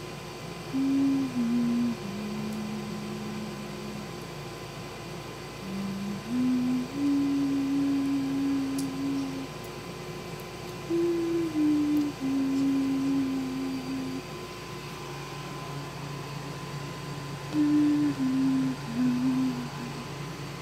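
A person humming a slow, soft tune to lull a baby to sleep: held notes stepping up and down, in three phrases with short pauses between them.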